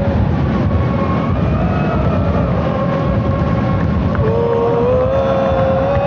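Loud, steady din of a large crowd of football supporters. Through it run long held tones that rise slowly in pitch, the clearest near the end.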